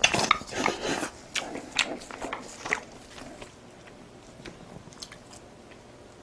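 A person chewing and biting food, with crunchy, wet mouth sounds that are dense over the first three seconds and then grow quieter and sparser.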